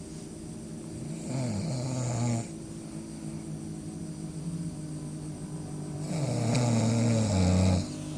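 A person snoring: two loud snores about five seconds apart, each a rasping breath whose pitch drops at the start.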